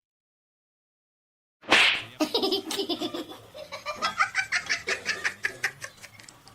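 A sudden loud burst of noise, then a person laughing hard in rapid repeated bursts.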